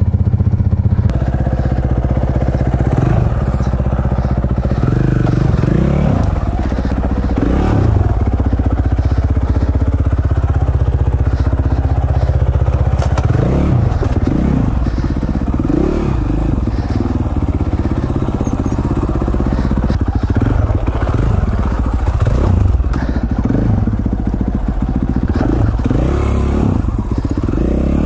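Dirt bike engine running under load on a trail ride, its pitch rising and falling as the throttle is worked on and off.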